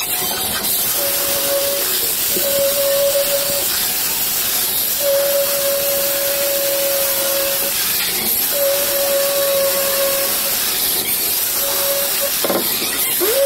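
Cordless drill cutting holes in a gypsum board ceiling: a steady hiss with the motor's whine coming and going in about six runs, the longest nearly three seconds.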